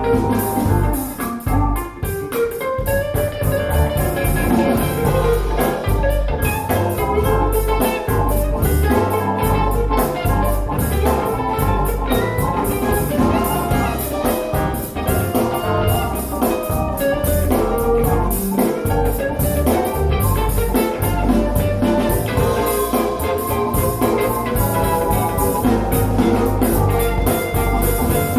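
Music with drums, a steady bass line and melodic instruments, played through a pair of B&W 707 S2 bookshelf speakers for a sound demo.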